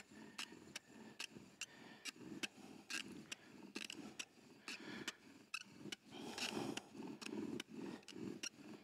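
Bow drill running: a wooden spindle sawed back and forth by a cord bow, giving faint, steady rhythmic rubbing strokes with sharp little clicks. The spindle top is heating in its bearing block, which is starting to smoke from the friction.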